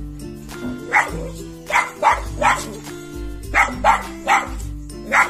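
Small terrier barking at a cat, about eight sharp barks in quick runs of one to three, over background music.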